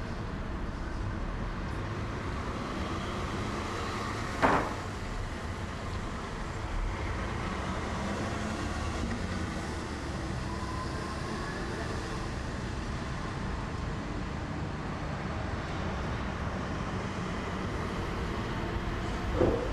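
Steady low rumbling background noise, with a single sharp knock about four and a half seconds in and another short knock near the end as a wooden desk drawer is handled.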